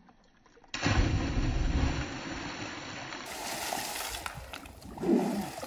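A person plunging feet-first into deep water in a stone-lined well: a sudden heavy splash about a second in, then water churning and sloshing for several seconds.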